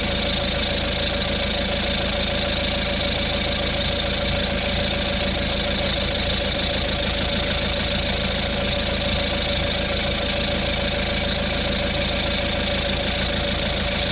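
Auto XS 12-volt digital tyre inflator's piston compressor running steadily, pumping up a car tyre with a fast, even chugging and a constant whine.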